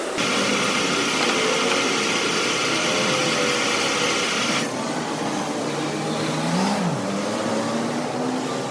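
A small electric motor running with a loud airy hiss, which cuts off about four and a half seconds in, leaving a quieter hum whose pitch briefly rises and falls near the end.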